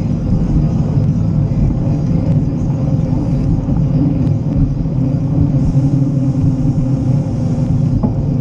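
Steady low rumble of wind buffeting the microphone and tyres rolling on pavement as a mountain bike is ridden along a paved path.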